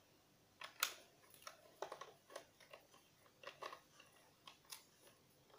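Hard plastic toy parts clicking and knocking together as a wheel and screw are fitted onto a take-apart toy truck: a string of small, irregular clicks, the loudest about a second in.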